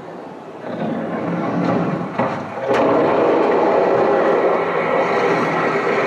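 Sound-effect roar of a Tyrannosaurus rex from an animated exhibit film, played through the theatre's speakers. It becomes loud and sustained about two and a half seconds in and holds until near the end.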